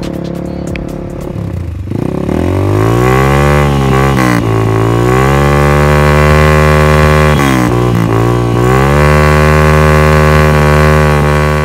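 2021 Hero Xtreme 200S single-cylinder engine through a loud exhaust, running low at first, then revved up about two seconds in and held at high revs. The revs drop briefly twice and climb back each time.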